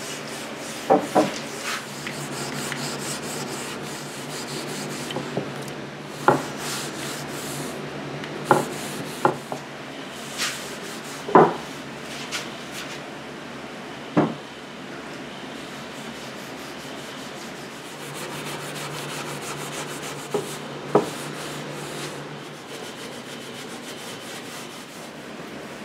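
Hand wiping and scrubbing of a mahogany tabletop with an acetone-soaked rag, a steady rubbing hiss on wood. About a dozen sharp knocks and taps are scattered through it, the loudest about eleven seconds in.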